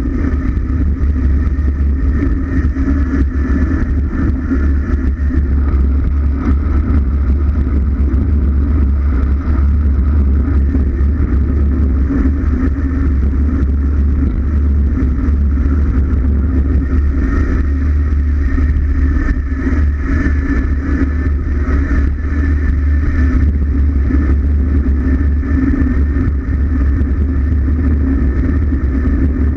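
Wind buffeting the microphone of a bike-mounted camera during a fast road-bicycle descent: a loud, steady low rumble with road noise over it and no break.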